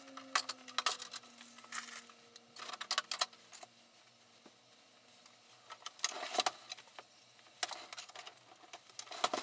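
Packaging being unwrapped and handled, in irregular clusters of crackles and sharp clicks with a short lull midway.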